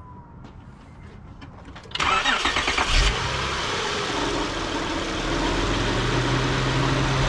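Acura TL's J-series V6, just fitted with lightweight serpentine belt pulleys, cranks and fires about two seconds in, then settles into a steady idle.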